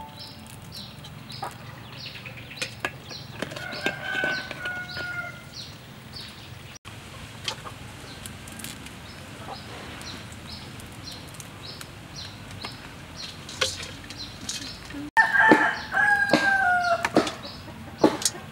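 A rooster crowing twice, faintly about four seconds in and loudly near the end, each crow a falling call lasting under two seconds. Underneath runs a steady high chirping, about three pulses a second, with scattered sharp clicks.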